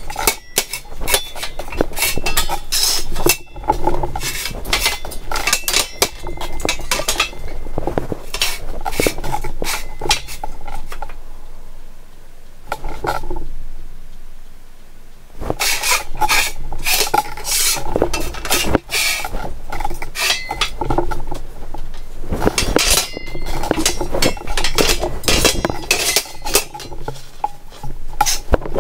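Steel mower frame rails clanking and clinking against each other and a steel table top as they are moved and lined up by hand, in a run of sharp knocks that eases off for a few seconds about halfway through.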